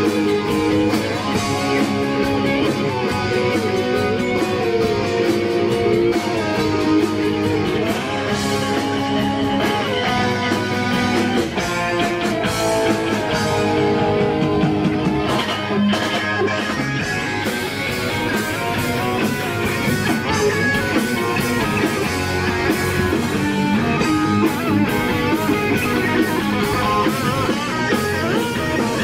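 Rock band playing live, with guitar leading over drums.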